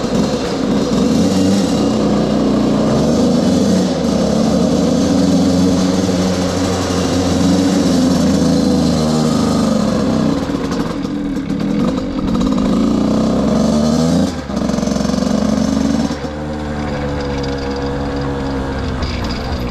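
Beta RR 50 enduro motorcycle's 50 cc two-stroke engine running while riding, its pitch rising and falling with the throttle. It dips briefly about fourteen seconds in, then runs lower and steadier for the last few seconds.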